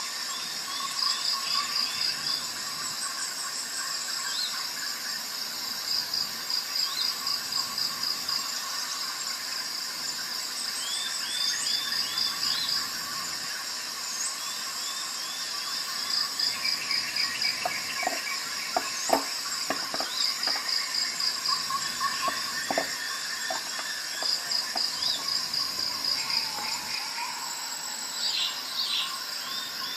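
Chorus of insects such as crickets, with high trills repeating in pulsed runs. Short chirps come over it, and a cluster of sharp clicks falls about two-thirds of the way through.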